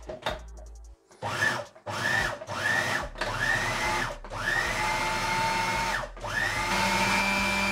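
Food processor motor run in pulses: about six bursts, each opening with a rising whine as the blade spins up, the first ones short and the later ones a second or more long. It is making a first coarse blend of whole chickpeas with tahini, lime juice and garlic. A click or two comes just before the first pulse.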